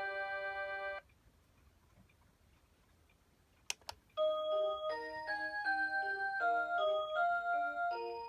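Rhythm Watch Aria Cantabile melody alarm clock playing an electronic "Aurora Sound" chime melody that cuts off abruptly about a second in. After a few seconds' pause come two sharp clicks, and a new melody starts just after them and keeps playing.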